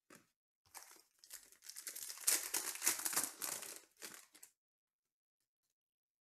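Foil wrapper of a Panini Contenders baseball card pack being torn open and crinkled by hand. The crackling starts about a second in, is loudest in the middle and stops at about four and a half seconds.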